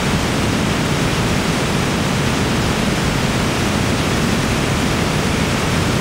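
Waterfall cascading down a narrow rocky gorge: a loud, steady rush of falling water.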